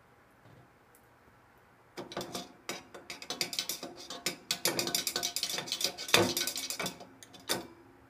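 A thin rod stirring the water inside an aluminium soda can, clattering rapidly against the can's rim and sides. It starts about two seconds in and stops with a last clatter near the end.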